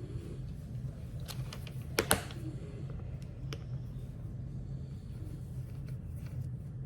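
Small hard clicks of a precision screwdriver and its Torx bits being handled and fitted to tiny screws, with two sharp clicks about two seconds in, over a steady low hum.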